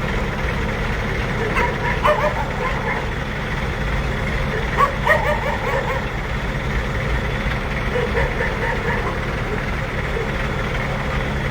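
A diesel engine idling steadily, with short high-pitched yelps or calls breaking in over it about two, five and eight seconds in.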